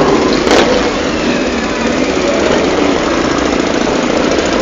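Many motorcycle engines running together as a column of bikes rides slowly past, with individual engines revving up and down.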